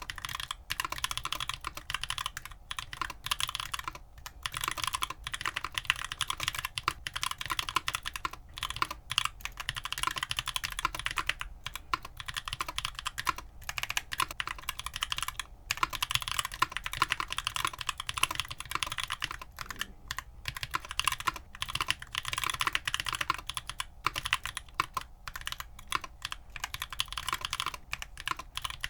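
Mechanical keyboard fitted with stock, unlubed Keebfront Doom tactile switches (long-pole POM stem, nylon bottom housing, HDPE top housing), typed on steadily with a few brief pauses.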